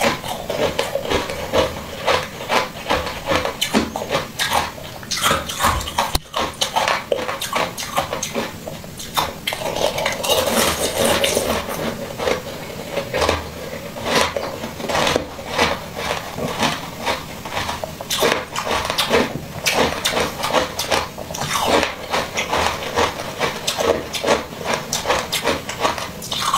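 Close-miked eating sounds: wet chewing, smacking and slurping of soft jelly, a quick run of squelches and clicks.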